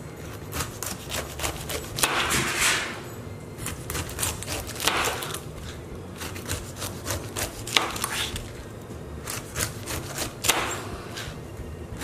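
A kitchen knife slicing the rind off a whole pineapple on a cutting board: a series of slicing strokes through the tough skin, each lasting about half a second, with short clicks in between.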